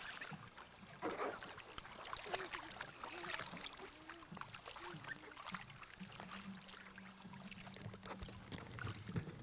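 Water splashing and sloshing in a shallow plastic wading pool as a toddler moves about and climbs around in it, in many small irregular splashes, over a steady low hum.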